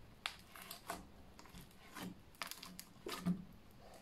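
Fluffy slime with foam balls pressed and kneaded between fingers, giving a series of irregular sharp clicks, about a dozen in a few seconds.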